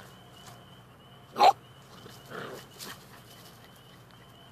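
A small dog barks once, short and sharp, about a second and a half in, then gives a fainter, briefer sound about a second later.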